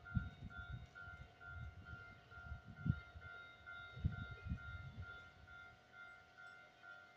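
Railway level crossing alarm ringing steadily, about two strokes a second, with irregular low gusts of wind buffeting the microphone.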